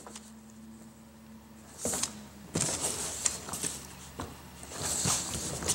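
A fabric suitcase being handled and turned over: rustling of its cloth cover with irregular clicks and knocks from its case and telescoping handle, starting about two seconds in over a steady low hum.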